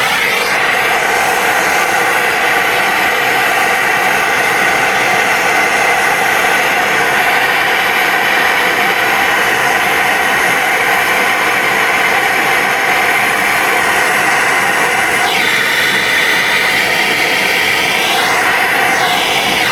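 MAP gas torch burning with a steady hiss, its flame on a copper fitting at a brass shower valve to heat it for soldering. The tone sweeps a couple of times in the last few seconds as the flame moves.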